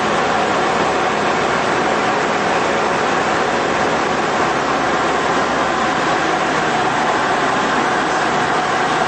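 Tecnam Sierra light aircraft's Rotax 912 flat-four engine and propeller droning steadily in flight, heard inside the cockpit along with rushing airflow noise.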